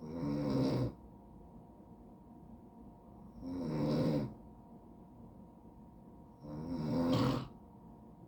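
A sleeping man snoring: three snores about three seconds apart, each lasting under a second.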